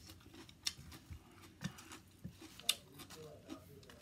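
Faint, scattered crisp snaps and clicks, roughly one a second, as fresh herb leaves and greens are plucked and broken by hand.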